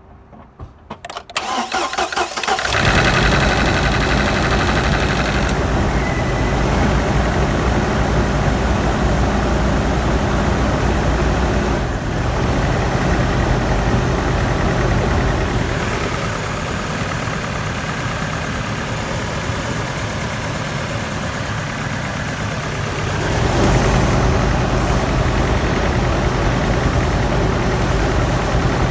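GMC 2.8 L inline-four engine cranked over and catching after a second or two, then idling with cylinder 3 misfiring from a broken ignition coil. The idle drops somewhat past the middle, then picks up again near the end.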